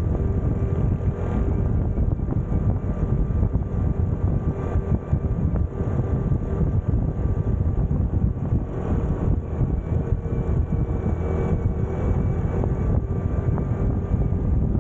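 Honda CT125's single-cylinder engine running steadily at cruising speed while the motorcycle rides along, mixed with wind and road noise.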